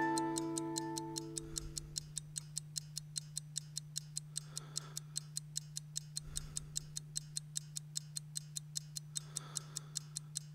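Steady ticking, about three ticks a second, over a low steady hum; a held music chord fades out in the first second and a half.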